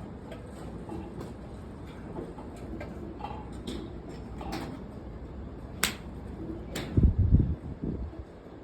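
Two sharp cracks of golf clubs striking balls, about a second apart near the end, followed by a short cluster of heavy low thumps.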